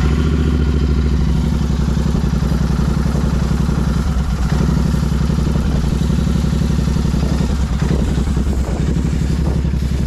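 Royal Enfield Continental GT 650's parallel-twin engine idling steadily, a smooth even low beat with no change in revs.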